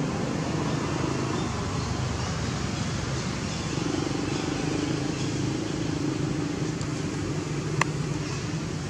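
Steady background hiss with a low, wavering hum under it, and one sharp click near the end.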